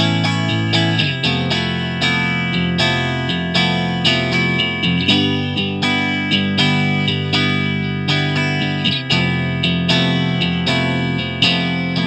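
Electric guitar, a Fender Stratocaster, playing a continuous picked phrase through a tube guitar amp turned up loud, picked up by a Shure SM57 placed close to the speaker cabinet.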